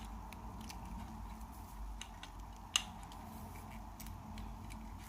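Key being turned in a U-shaped bike lock, with faint handling ticks and one sharp metallic click nearly three seconds in.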